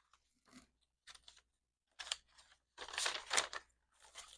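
Paper banknotes rustling and crinkling as they are handled and flipped through by hand, in short irregular bursts with the loudest flurry about three seconds in.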